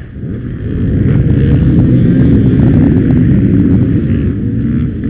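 A crowd of enduro dirt bikes revving together, their engines blending into one dense din. The din swells over the first second, then stays loud.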